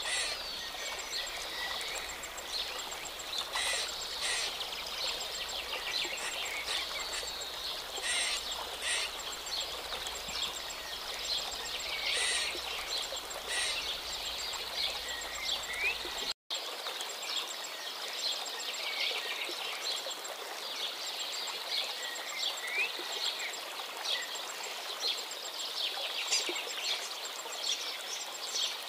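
Small wild birds chirping and singing in a continuous woodland chorus of high, quick chirps. A few sharp clicks stand out in the first half, and the sound drops out for an instant about halfway through.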